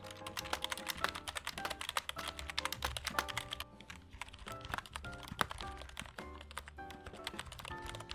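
Typing on a Logitech G213 Prodigy membrane keyboard whose membrane contact points and stabilizers have been lubed: a quick, irregular run of keystrokes, several a second. Background music plays underneath.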